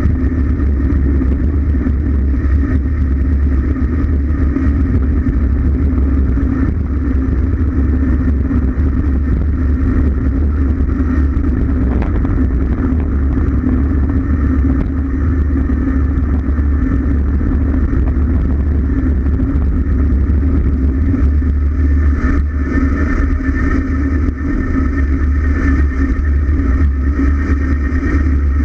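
Steady, loud wind roar and low rumble on a bicycle-mounted camera's microphone during a fast road-bike descent, mixed with road noise from the tyres on asphalt.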